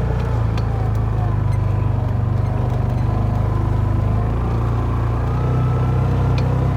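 Vehicle engine running at a steady speed with a constant low hum, heard from on board while driving slowly through the pasture.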